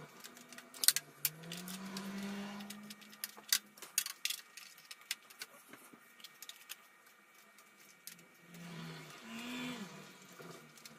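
Scattered sharp clicks and taps of a hand handling parts and cables inside an open desktop PC case, the loudest about a second in. A low hum comes and goes underneath, around the second second and again near the end.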